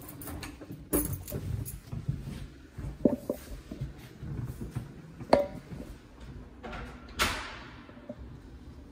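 An apartment front door being unlocked and opened: keys and the deadbolt and knob clicking several times, one click with a short metallic ring, then a louder swish as the door swings open.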